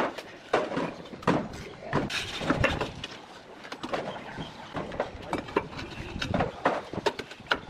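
Terracotta roof tiles clinking and knocking against one another as they are set by hand into mortar, in irregular sharp taps about two a second.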